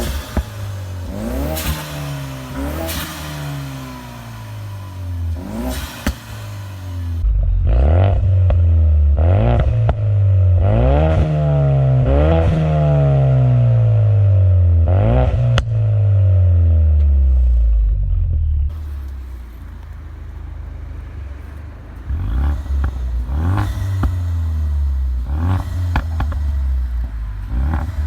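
Ford Mustang EcoBoost's turbocharged 2.3-litre four-cylinder revving again and again through a COBB exhaust, the revs climbing and falling. Sharp pops and crackles come as the revs drop, from a tune set up for exhaust pops. The sound changes abruptly twice, about seven seconds in and again later on.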